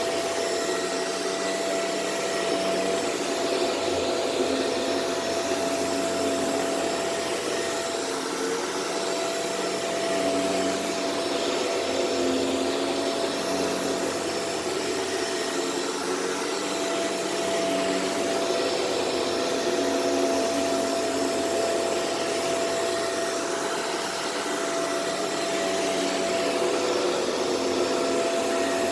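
Shark Rotator Powered Lift-Away upright vacuum cleaner running steadily on carpet, its motor hum holding one steady tone while the suction noise swells and eases with each push and pull of the head.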